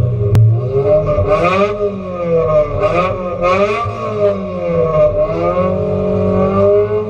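Race car engine heard from inside the stripped cabin, revved in place: its pitch rises and falls several times as the throttle is blipped. A single sharp click about half a second in.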